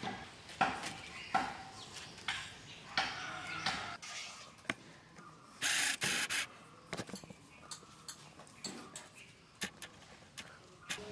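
Knife scraping the skin off a potato in short strokes, a little under one a second. About six seconds in comes a louder rough rubbing lasting nearly a second, then a scatter of small clicks.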